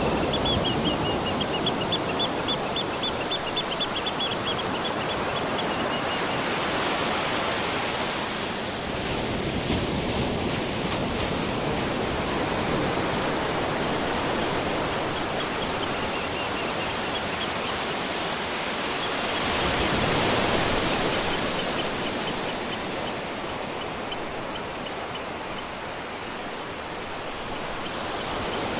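Ocean surf washing steadily, swelling louder twice as waves come in. A faint, high, rapid trilling chirp sounds over it near the start and again midway.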